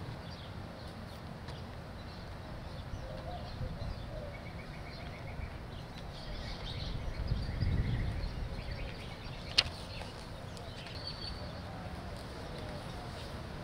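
Backyard ambience with faint bird chirps. A low rumble swells about seven to eight seconds in, and there is one sharp click about nine and a half seconds in.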